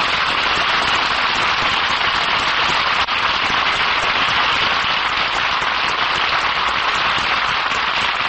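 Audience applauding steadily, a dense even clapping.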